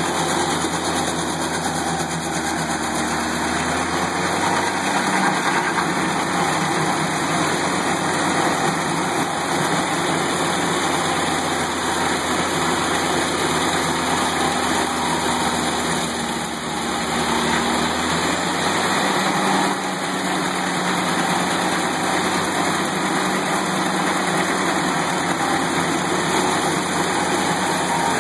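Tow-behind stump grinder's engine running under load as its cutter wheel grinds into a tree stump. The note is steady and loud, sagging and recovering twice as the cutter bites.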